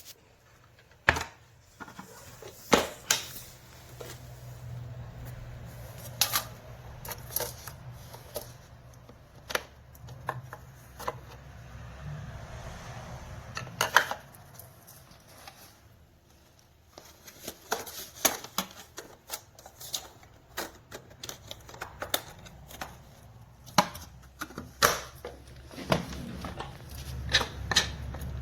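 Irregular sharp clicks and knocks, some single and some in quick clusters, over a faint low hum.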